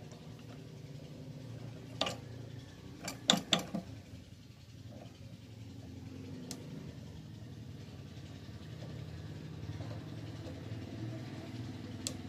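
Sharp metal clicks and clinks as the tool post of a mini metal lathe is handled and adjusted, with a quick run of four clicks about three seconds in, over a steady low hum.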